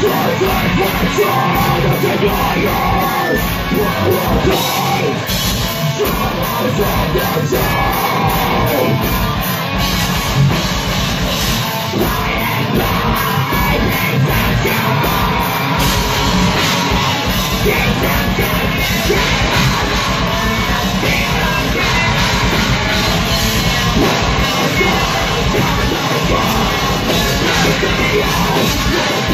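Live heavy metal band playing loud and without a break: distorted electric guitars, drum kit and a vocalist shouting and singing into a microphone through the PA.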